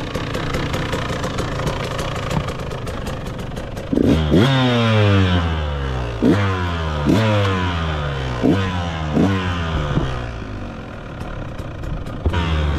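KTM dirt bike engine idling, then revved in about six quick throttle blips from about four seconds in, each jump in revs falling slowly away. The engine is revved up again near the end.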